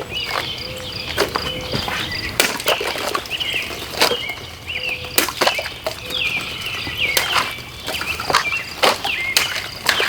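Songbirds chirping over and over, broken by a series of sharp knocks that often come in quick pairs.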